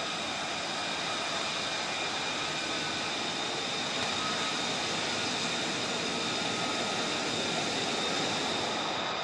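Jet engine running steadily on the flight line: an even rushing noise with a high, constant whine of several tones over it.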